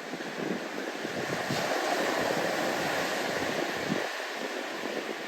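Large ocean waves breaking, a steady rushing surf noise that builds over the first two seconds and eases a little toward the end.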